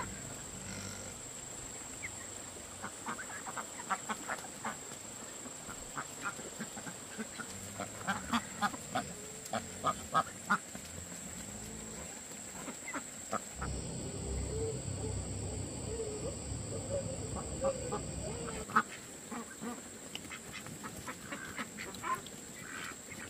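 Animal calls, many short ones in a row, with a stretch of low rumbling partway through.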